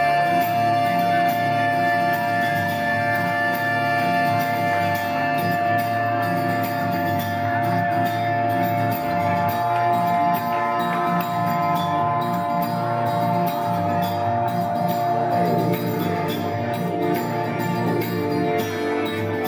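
Live rock band playing a slow instrumental passage: long sustained chords over bass and drums with cymbal shimmer. Gliding notes drift down and back up about fifteen seconds in.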